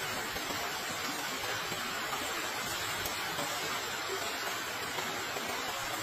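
Steady hissing rush of water, even and unbroken, with no separate splashes or knocks.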